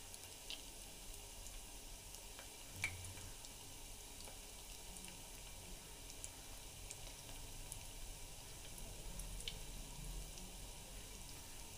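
Breadcrumb-coated potato balls deep-frying in oil on a low flame: a faint, steady sizzle with scattered small crackles. One sharper click stands out about three seconds in.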